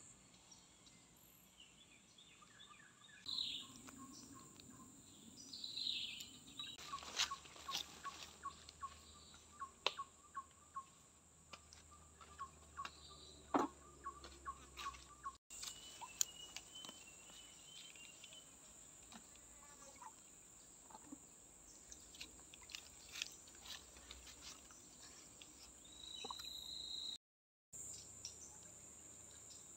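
Tropical forest ambience: birds chirping and calling over a steady high-pitched insect drone. In the middle, a bird repeats a short note for several seconds, and scattered sharp clicks are heard.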